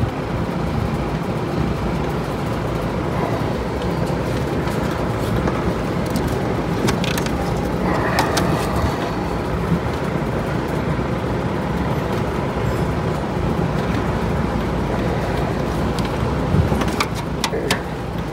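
A big fan blowing with a steady rushing hum. A few short metal clicks from a wrench on the fittings come about seven seconds in and again near the end.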